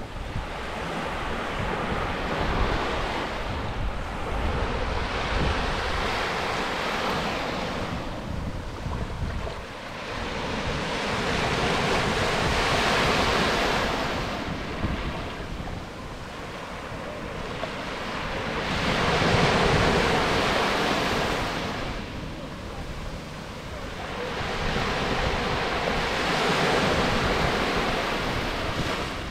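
Small waves breaking and washing up a sandy beach, the hiss of the surf swelling and fading every few seconds as each wave comes in and draws back.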